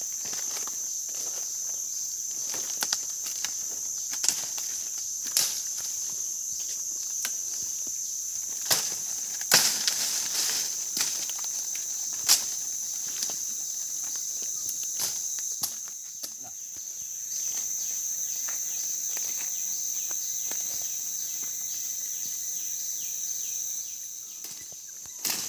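Steady high-pitched chorus of forest insects, with scattered snaps and crunches of footsteps through undergrowth.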